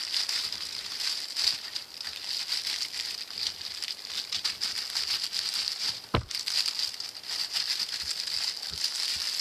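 Clear plastic bag crinkling and rustling as hands handle a plastic model-kit sprue inside it. A single sharp knock about six seconds in.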